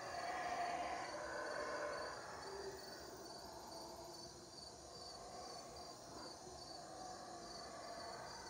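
Black howler monkeys roaring, loudest in the first two seconds and then easing off. Insects chirp in an even, pulsing rhythm underneath.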